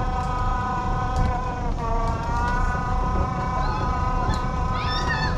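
Electric motor of a ride-on jeep whining steadily as it drives, its pitch dipping briefly about two seconds in and then rising back as the speed changes, over a low rumble of the wheels rolling on a wooden bridge deck. A few brief high chirps come near the end.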